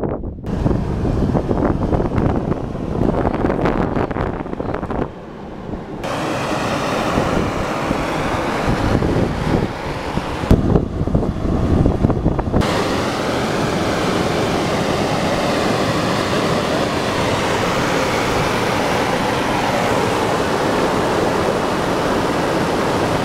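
Gusty wind buffeting the microphone, then from about halfway through a steady, loud hiss of steam jetting from a sulphur-encrusted volcanic fumarole.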